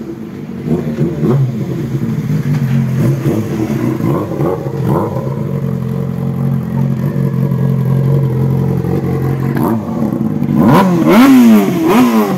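Yamaha R6 inline-four engine idling steadily, then revved up and back down several times in quick succession near the end.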